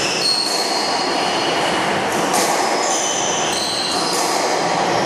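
Squash players' court shoes squeaking in short, high squeals on the wooden court floor during a rally, over steady background noise, with a sharp knock of a ball strike about two and a half seconds in.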